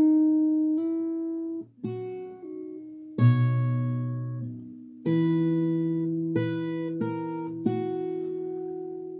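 Acoustic guitar played fingerstyle and slowly: single notes and two-note shapes plucked one at a time and left to ring, with a couple of notes changed by hammer-ons.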